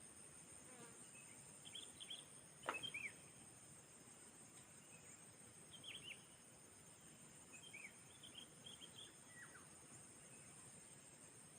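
Faint steady high-pitched drone of insects, with scattered short chirps and one sharp click about three seconds in.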